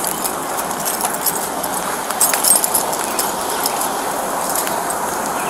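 A walking police officer's footsteps, with keys and duty-belt gear jingling and clinking irregularly. Under them runs a steady hiss, heard on the body-worn camera.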